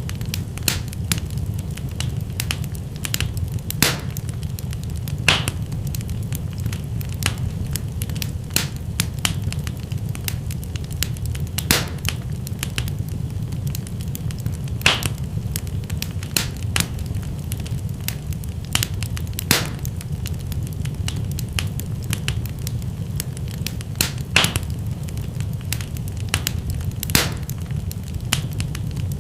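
Wood fire crackling in a fireplace: irregular sharp pops and snaps, a few louder every few seconds, over a steady low rumble of the burning fire.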